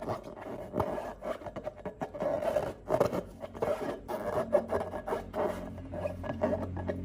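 Irregular rubbing and scraping handling sounds made up of many quick crackles, starting abruptly; a low steady hum of background music comes in near the end.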